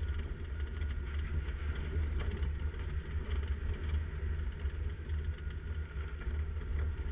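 1997 Jeep Wrangler TJ engine running steadily with a deep rumble as the Jeep drives along a dirt trail, heard from a camera mounted on the outside of the body.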